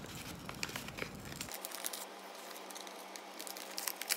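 Paper envelope being handled and opened by hand, giving a run of small crinkles and clicks of paper.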